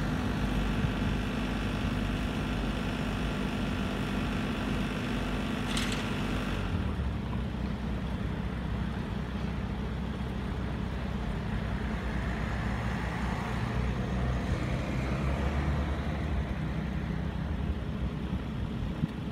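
Construction machine engines running steadily, a low drone with a higher, humming layer on top. About six seconds in there is a brief hiss, and the higher-pitched part of the noise drops away, leaving the low engine rumble.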